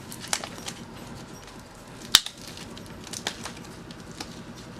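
Slushy slime being poked and squished by hand, giving scattered clicks and pops, the sharpest about two seconds in.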